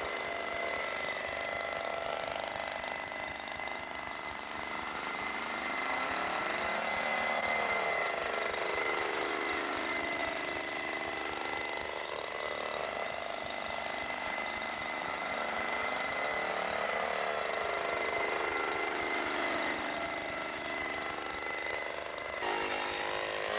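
Two-stroke leaf blower engine running steadily. Its pitch rises and falls in a slow cycle about every four to five seconds as the blower is carried round on the spinning swing arm.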